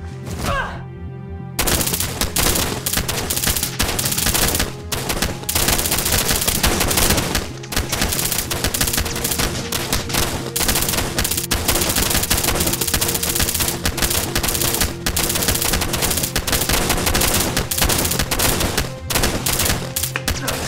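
Gunfire in an action-film shootout: rapid, near-continuous shots over a music score with a pulsing bass line. The shooting breaks in about a second and a half in.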